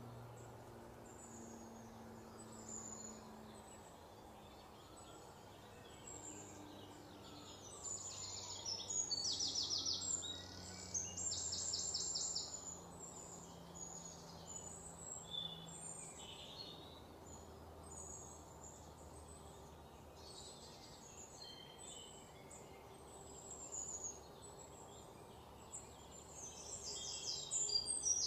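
Small birds chirping and calling, with several bursts of rapid trilling, over a faint low background hum.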